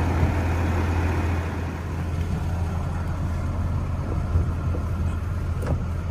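Ram pickup truck's engine idling: a steady low hum.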